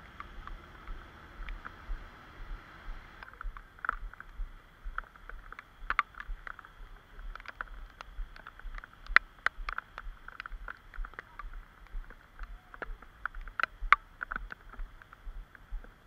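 Footsteps on a rain-soaked pavement, with low thuds about twice a second and many irregular sharp ticks. A faint steady hiss fades out about three seconds in.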